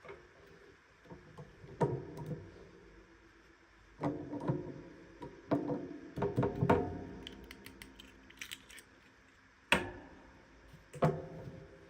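Toy packaging being handled and opened: scattered taps and knocks, several with a short hollow ring, and a light crinkling in the middle.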